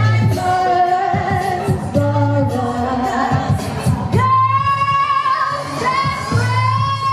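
Women singing with a live band and drums, in a steady beat; from about halfway through the singer holds long high notes.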